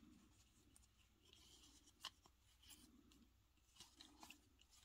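Near silence, with a few faint clicks and soft rustles as a small plastic action figure's elbow joint is worked and its cloth gi is handled.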